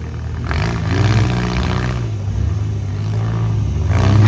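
Demolition derby vans' engines running and revving, the engine note rising and falling as the drivers work the throttle.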